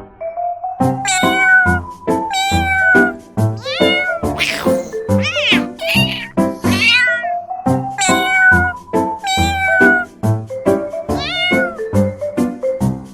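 Domestic cat meowing over and over, about ten meows in a row, some gliding up and down in pitch, over background music with a steady beat.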